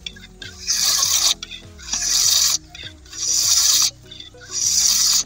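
Air pump being worked in strokes to force air into a bamboo cannon, each stroke a hiss of rushing air, four strokes about one every 1.3 seconds. Background music with steady low notes runs underneath.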